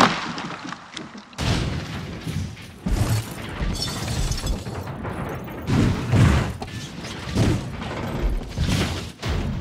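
A drone crashing down through a forest: a run of about seven irregular thuds and knocks as it tumbles through branches to the ground, with a rough rushing noise between them.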